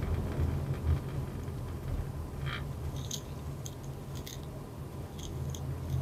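A car driving, heard from inside the cabin: a steady low rumble of engine and tyres, with a few faint light clicks scattered through it.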